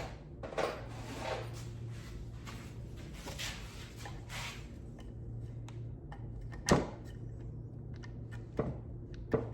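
Handling noise while readying the next screw: soft rustling and scraping over a low steady hum, with a few sharp knocks. The sharpest knock comes about two-thirds of the way in and two lighter ones come near the end. The impact driver is not running.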